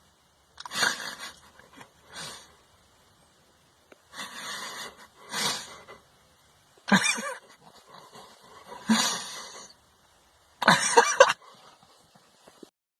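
A dog making a series of short, breathy, cough-like huffs, about seven of them at irregular intervals, the last ones the loudest.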